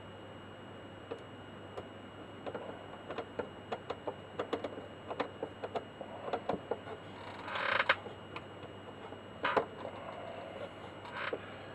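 Small irregular clicks and taps of a socket tool working at a nut among metal fittings, with one short, louder scrape about two-thirds of the way in.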